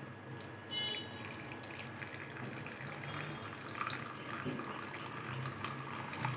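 Dark palm jaggery coffee decoction trickling in a thin stream from a steel pan into a steel vessel, poured slowly so the settled sediment stays behind.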